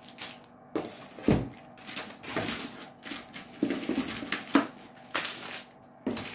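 Plastic packaging of knitting needles rustling and crinkling in irregular bursts as the packets are handled, with a few sharp clicks.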